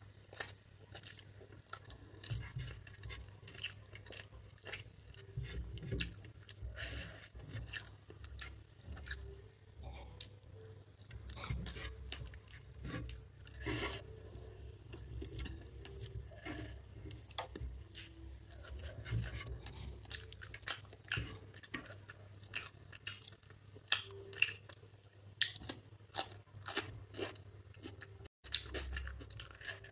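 Close-up chewing and mouth sounds of someone eating chicken biryani by hand, with fingers picking rice and tearing chicken on a plate. Many small irregular clicks and smacks.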